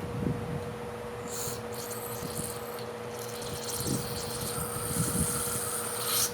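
Pressurised spray hissing onto disassembled carburetor parts as they are cleaned: a few short bursts, then one long spray of about three seconds that cuts off sharply. A faint steady hum sits underneath.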